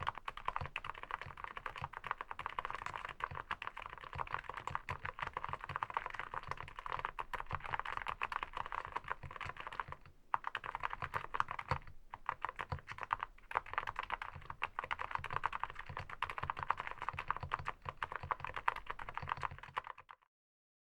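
Fast continuous typing on an SPM AL87A full-aluminium 87-key mechanical keyboard: a dense stream of key clacks with a few short breaks, stopping abruptly near the end.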